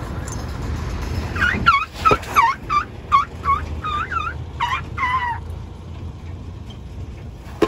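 An animal giving a quick series of about ten short, pitched calls, each dipping and rising again, two to three a second, for about four seconds.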